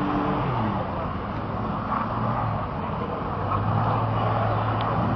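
Car engine revving hard while the car slides on a dirt lot. The pitch drops about half a second in, holds lower and steady, then climbs again near the end, over a constant rushing hiss.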